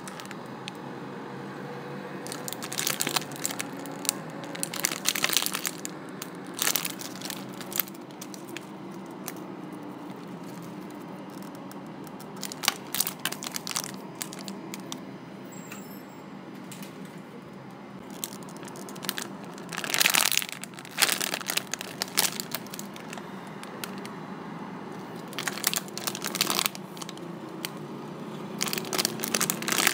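Clear plastic packaging crinkling in irregular bursts as a bagged toy is handled and turned over, with quieter stretches in between.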